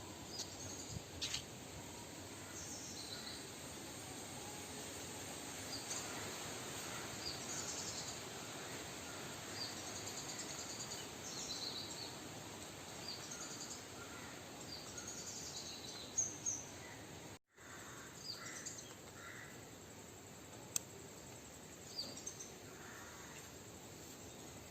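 Outdoor ambience: a steady background hiss with many short, high bird chirps and calls scattered throughout. The sound cuts out for a moment about two-thirds of the way through, then the same ambience carries on.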